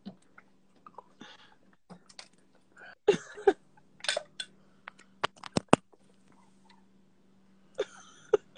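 Handling noise from a phone being moved about: scattered clicks and knocks with a few short rustling bursts, the loudest a quick run of sharp clicks about halfway through, over a faint steady hum.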